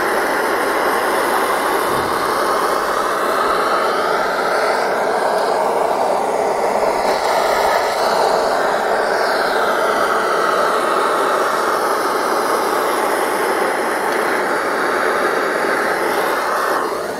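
Handheld butane gas torch burning with a steady hiss as its flame is played over an engine's aluminium crankcase; it cuts off right at the end.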